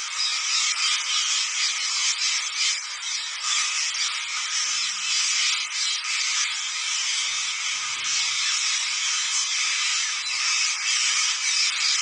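Dense, unbroken high-pitched chatter of a huge flock of green parakeets, countless birds calling at once while they feed on the ground.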